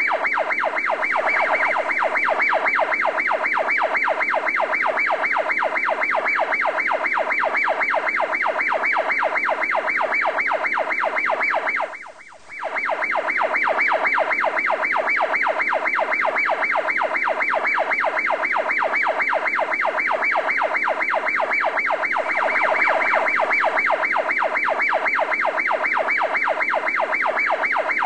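A steady, rapidly pulsing siren-like tone that repeats evenly without changing pitch, with a brief break about twelve seconds in.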